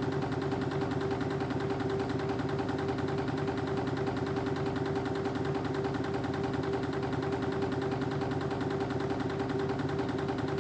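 Spring-wire machinery running steadily, a reciprocating wire uncoiler feeding a spring machine: a constant mechanical hum with one steady mid-pitched tone and a fast, even chatter.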